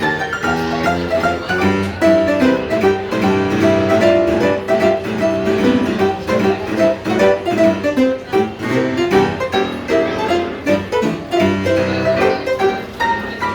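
Instrumental music with a steady pulse and many changing notes.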